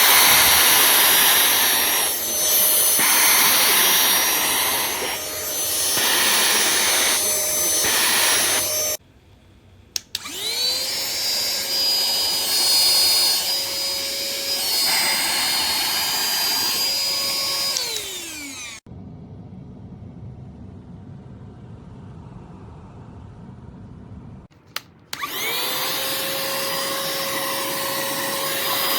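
Cordless handheld vacuum's motor running with a loud rush of air that changes as it works, then stopping. It is switched on again with a rising whine that holds steady and winds down when switched off. A low hum follows, then the motor spins up once more near the end and runs steadily.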